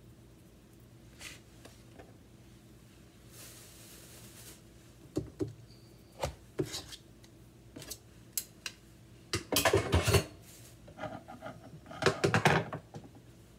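Dishes and kitchen utensils being handled on a counter: scattered knocks and clicks, then two louder bursts of clattering, one about two-thirds of the way in and one near the end.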